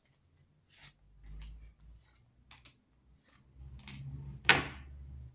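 Tarot cards handled and dealt onto a tabletop: a few soft, short card flicks, then one sharper slap as a card is laid down near the end.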